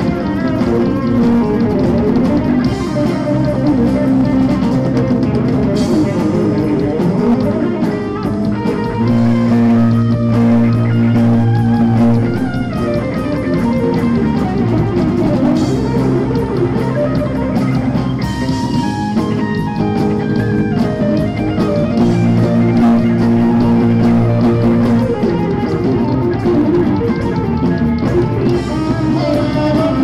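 Rock band playing loudly and continuously, with electric guitars, bass guitar and drum kit.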